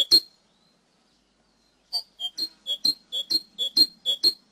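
Cinereous tit (glatik wingko) singing a fast run of sharp, high repeated notes, about four a second. It stops after the first note and starts again about two seconds in.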